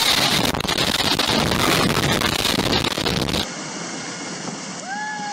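Loud rushing of water and air while sliding down an enclosed tube water slide, cutting off suddenly about three and a half seconds in. Quieter background noise follows, with a person's voice calling out near the end.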